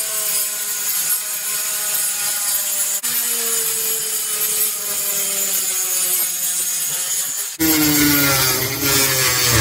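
Electric angle grinder cutting through cement board, a steady gritty cutting noise over a motor whine whose pitch sags slowly as the blade bites. About two seconds before the end the sound switches to a louder, deeper machine noise.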